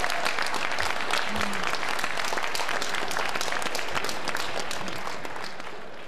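Large audience applauding, dense clapping throughout that fades out near the end.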